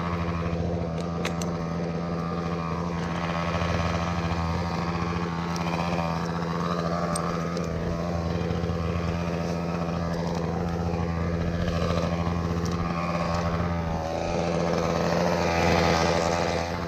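Engine running steadily at an even pitch, with some wavering in its higher sound.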